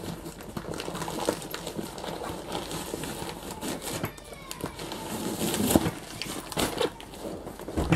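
Rustling and handling of a fabric diaper backpack and its contents, with small clicks and scrapes, as a zippered pouch is pulled from its back compartment.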